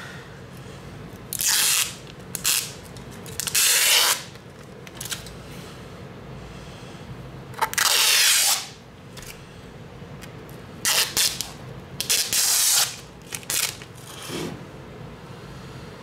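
A string of short hissing, rustling scrapes, the longest about a second, from the iPad 4's LCD panel and its plastic film being handled and rubbed, over a low steady hum.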